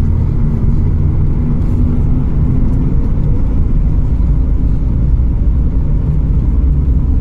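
Cabin noise of a Boeing 737 MAX 8 taxiing: a steady low rumble from the engines and the wheels rolling on the pavement, with a faint steady hum over it.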